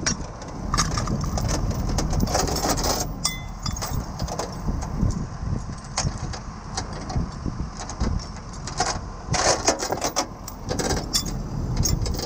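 Steel recovery chain being handled, its links clinking and rattling irregularly, most densely about nine to eleven seconds in, over a steady low rumble.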